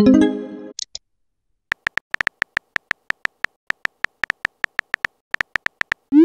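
Phone messaging-app sound effects: a short synthetic message chime, then a rapid string of on-screen keyboard tap clicks, about six a second, and a brief rising swoosh right at the end.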